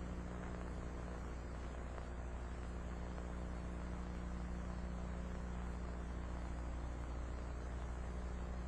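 Steady electrical mains hum with background hiss; no other sound stands out.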